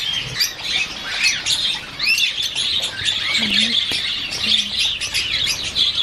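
A flock of caged small parrots chattering and squawking: a dense run of overlapping high chirps, with a few louder arched squawks standing out.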